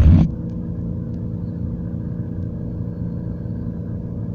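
A steady low mechanical hum with a few constant tones, like a motor running, after a short loud burst at the very start.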